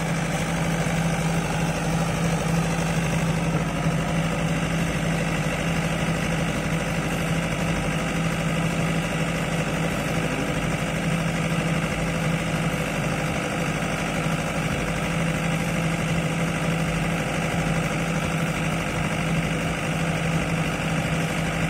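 Diesel generator set running at a steady speed, a constant unbroken engine drone with a strong low hum.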